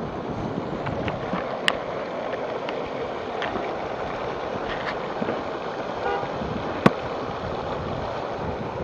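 Rain floodwater rushing along a street in a steady rush, broken by a few sharp knocks, two of them standing out, about two seconds in and about seven seconds in.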